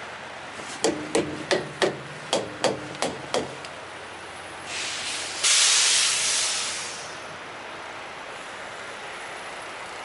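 A run of about nine sharp knocks, each with a brief ringing tone, over some three seconds. Then, about five seconds in, a loud burst of compressed air hissing that dies away over a couple of seconds.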